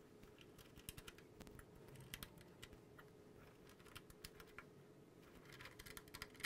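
Faint, irregular small plastic clicks and taps as ribbon-cable connectors are handled and pushed into the ports of an i-meter 45 electricity sub-meter, over a faint steady hum.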